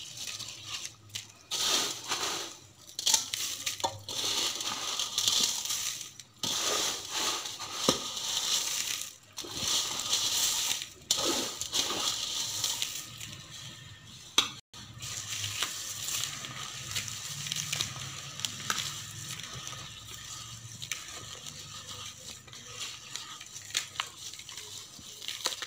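Dried onion and spice vadiyam mixture being mixed into onion juice in a bowl: uneven bursts of wet, crackly mixing noise with a few sharp clicks. The mixing is busier in the first half and steadier and quieter after a sharp click about halfway through.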